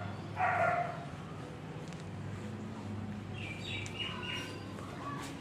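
Birds calling and chirping: one loud call about half a second in, then a run of short chirps near the end, over a low steady hum.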